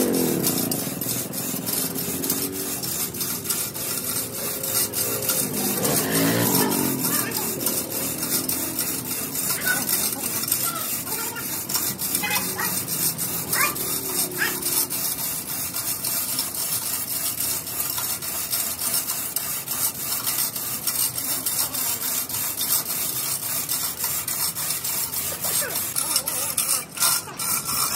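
Hand chain hoist rattling with rapid clicks as it lifts a crucible of molten metal up out of a pit furnace, over a steady hiss. Brief voices come at the start and about six seconds in.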